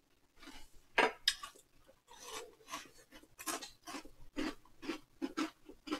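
Crunchy chocolate granola cereal in milk being chewed close to the microphone: a string of short, irregular crunches.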